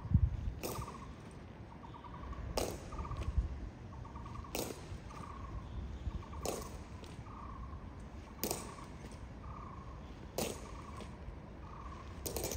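Honour guard's boot heels striking stone in a slow ceremonial march: a sharp click about every two seconds. Between the steps a bird repeats a short trilled call about once a second, and there is a low thump just at the start.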